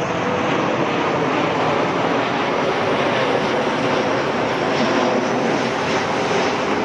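Airplane engine noise: a steady, loud roar with no break.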